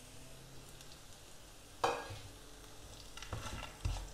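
Oil sizzling gently in a frying pan with dals, ginger and cashew nuts, as a wooden spatula stirs and scrapes against the pan, with one sharp knock about two seconds in and a few more scrapes near the end.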